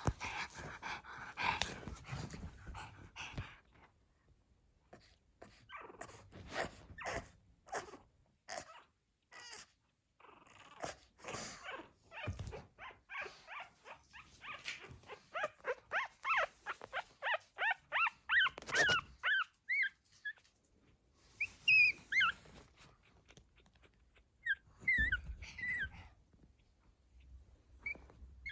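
Two-week-old pug puppy whimpering and squeaking: a rapid run of short, high cries, about three a second, in the middle, then a few scattered squeals near the end. Earlier there are soft scuffs and clicks.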